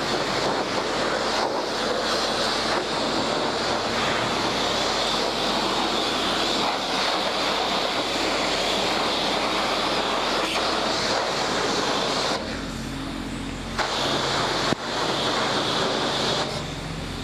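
High-pressure car-wash wand spraying water onto a dirt bike: a loud, steady hiss of spray. It cuts out briefly twice, in the last few seconds, leaving a low steady hum, with a click as the spray comes back on.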